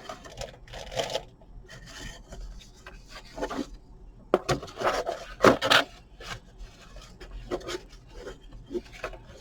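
Paper and plastic packaging rustling and rubbing as a plastic model kit's instruction booklet and parts are handled, with a few sharp handling clicks. The rustling comes in irregular bursts and is loudest around the middle.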